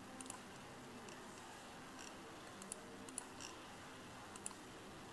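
Faint computer mouse clicks, a handful of single clicks about a second apart, over quiet room tone.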